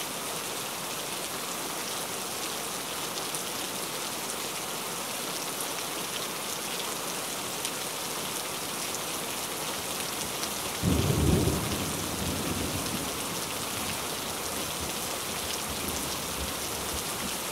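A steady, even hiss like light rain, with a brief low rumble about eleven seconds in.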